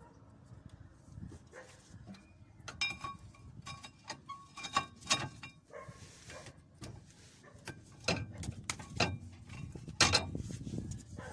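Irregular metallic clinks and knocks of hand tools and brake parts, some of them ringing briefly, with a louder knock about ten seconds in.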